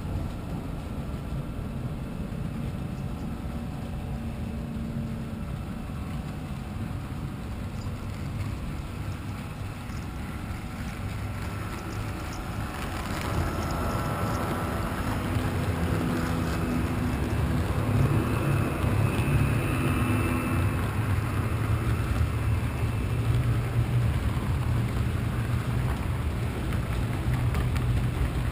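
Model trains running on the layout's track, giving a steady rumble of wheels on rail. It grows louder about halfway through as a locomotive passes close on the near track, with a whine from its drive for several seconds.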